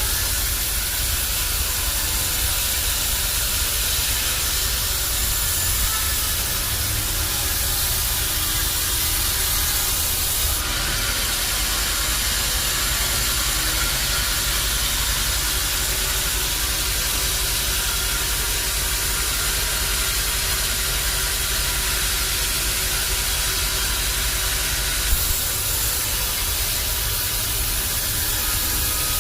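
Bandsaw sawmill running steadily, a constant hiss over a low motor hum. The hiss brightens about ten seconds in and eases back near the end, where there is a single brief knock.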